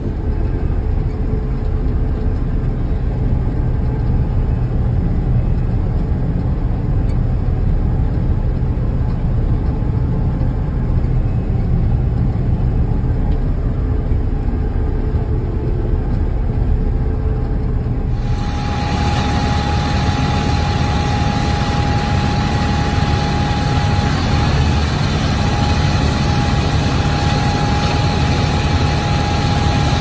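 Combine harvester running steadily while cutting soybeans: a muffled, low engine and machinery drone as heard from inside the cab. About 18 seconds in it changes abruptly to a brighter machine drone with a steady whine over it.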